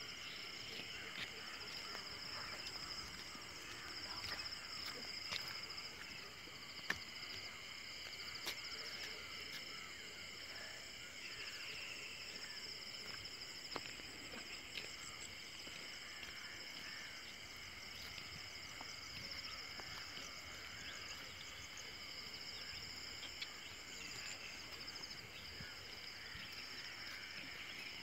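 Chorus of insects, a steady high trilling at several pitches at once, with a few faint short clicks scattered through.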